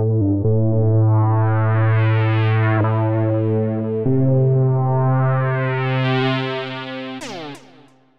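Scottish Analog Lead synth preset from ROLI's Equator Player, played on a Seaboard Block: held low lead notes whose tone twice grows brighter and then duller. About seven seconds in, the notes slide down in pitch and fade out.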